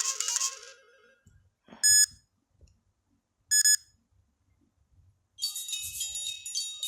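A Samsung Galaxy Note 3 ringtone played through the phone's speaker fades out, then two short, loud electronic beeps sound about a second and a half apart, with faint handling knocks, before the next ringtone starts playing near the end.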